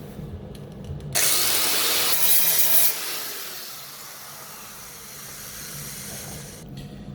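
Grinder switched on about a second in and grinding down a MIG plug weld on steel for about two seconds, then released and spinning down, its hiss fading over the next few seconds.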